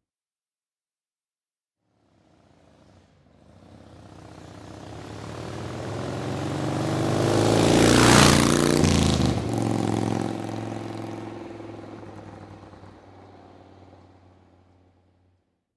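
Motorcycle driving past: after about two seconds of silence its engine comes in faintly, grows steadily louder to a peak a little past halfway, drops in pitch as it passes, and fades away.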